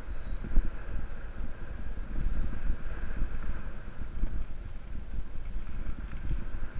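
Wind buffeting the camera microphone over the rumble and rattle of a Jamis Dakar XCT Pro full-suspension mountain bike rolling fast over dirt singletrack, with many small knocks from the bumps.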